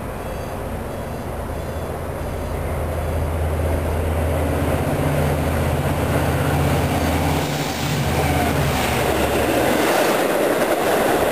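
Diesel-hauled passenger train with bilevel coaches approaching and passing close. A low, steady engine drone grows louder, then gives way about three quarters of the way through to the louder rumble of the coaches' wheels on the rails.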